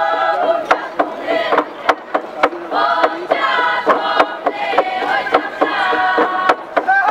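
Phom log drum, carved from a single piece of wood, struck with sticks in sharp wooden knocks about twice a second, under a group of voices chanting and singing together.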